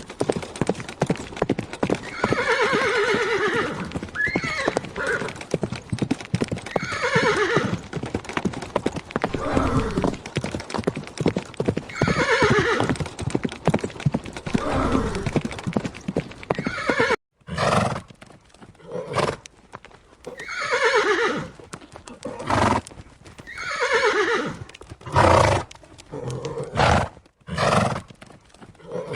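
Horses neighing again and again, each whinny falling in pitch, over the clip-clop of hooves. Two brief dropouts, about two-thirds of the way through and near the end, are cuts between recordings.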